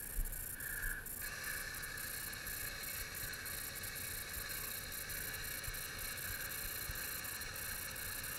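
Electric winch on a Kawasaki Teryx side-by-side running steadily, reeling in its cable and hauling the vehicle forward. The sound fills out about a second in and then holds steady.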